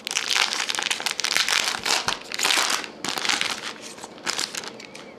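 Foil wrapper of a trading-card pack crinkling in a run of short crackles as it is opened by hand and the cards are pulled out.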